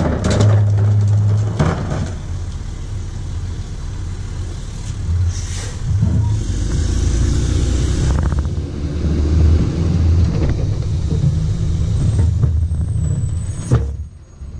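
Rear-loader garbage truck's engine and body rumbling steadily while it drives, heard from inside the hopper, with knocks and rattles near the start and near the end and a short hiss about five seconds in.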